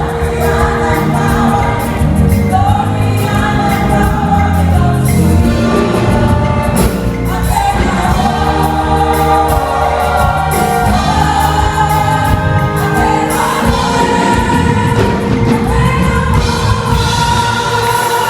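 Gospel choir singing with a live church band.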